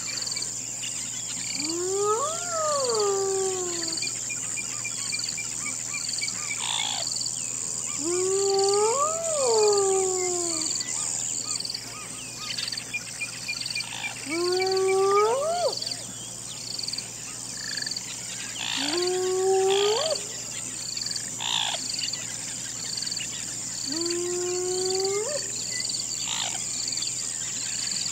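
Hyena howling, a series of about six rising calls roughly every five to six seconds; the first two rise and then fall, and the later ones sweep upward. Beneath them runs a constant night insect chorus: a steady high trill and a regular pulsing chirp.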